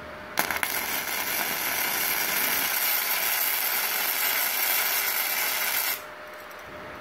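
Gasless flux-core MIG welding arc on aluminium plate: it strikes with a sharp crack about half a second in, runs as a steady crackling sizzle and cuts off abruptly about six seconds in. The current is turned down because the plate is already too hot.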